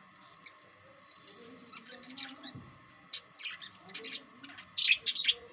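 Parrot giving a run of short, sharp squawks and chirps, louder and more crowded together near the end.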